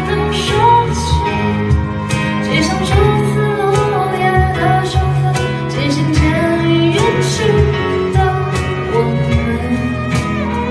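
Live band playing a gentle folk-pop song: a woman singing over acoustic guitar, keyboard and violin.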